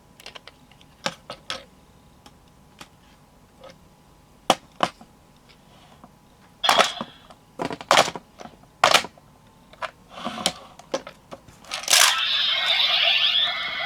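Plastic clicks and snaps of a transforming toy phone being handled, scattered and irregular with a few louder snaps. About twelve seconds in, a loud electronic sound effect starts from the toy's speaker.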